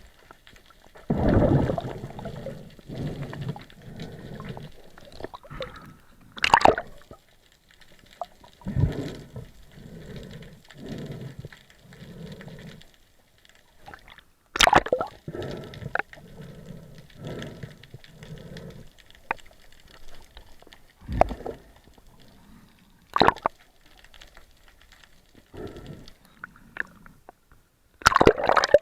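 Water gurgling and sloshing against the camera housing, likely while the camera is in the sea, with repeated murmuring surges. Several sharp knocks or clicks stand out, the loudest about a third and halfway through.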